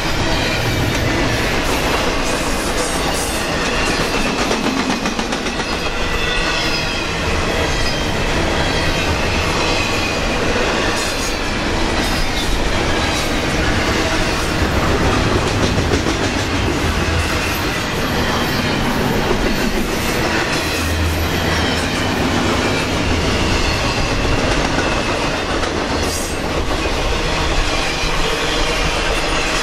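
Double-stack intermodal freight train's well cars rolling past close by: a steady rumble and clatter of steel wheels on the rails, with a faint wavering wheel squeal above it.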